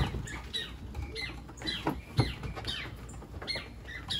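Small wild birds chirping: many quick, high chirps that drop in pitch, several a second, with a soft thump about two seconds in.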